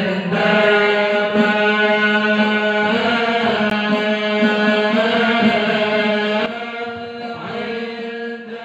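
Male voices chanting shalawat, the devotional Arabic praise of the Prophet, into a microphone in long, drawn-out held notes. The sound drops about six and a half seconds in and then fades out.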